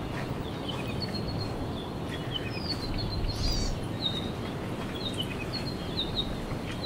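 Small forest birds chirping again and again in short, high notes, with a brief whistled call about halfway through, over a steady low background rush.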